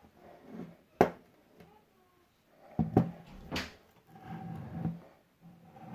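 Sharp clacks and knocks of a steel BMX stunt peg being handled against a strong neodymium clamp fishing magnet: one sharp clack about a second in, then three more close together around the middle, with muffled handling and rubbing between.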